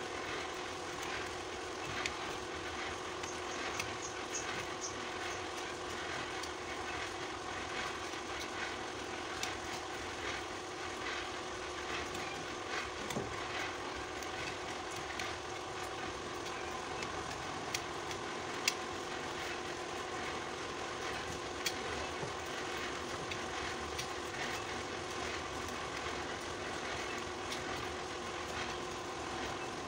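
Steady mechanical drone holding a few steady tones, with scattered light clicks and scrapes of a utility knife cutting into thin bamboo.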